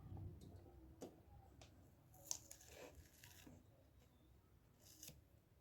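Near silence with a few faint clicks and rustles of objects being handled on a bench.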